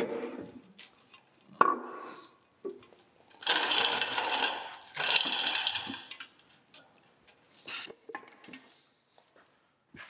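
Metal clanking and rattling as a cast-iron lathe tailstock hanging on a crane chain is shifted on a shop press: a sharp clank about a second and a half in, then two longer stretches of chain-and-metal rattle a few seconds in, then scattered light clicks.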